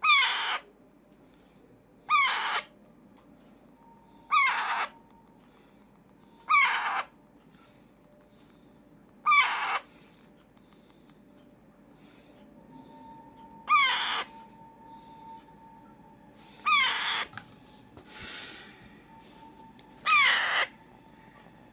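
Alexandrine parakeet giving loud, harsh, half-second screeching calls, eight times, spaced two to four seconds apart.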